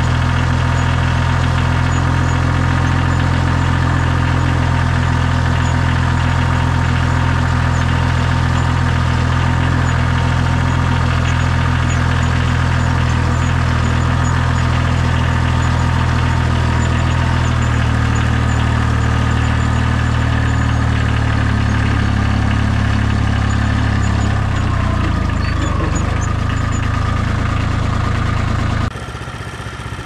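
Farm tractor engine running steadily as the tractor drives along. Its note shifts from about two-thirds of the way in, and it cuts off abruptly about a second before the end.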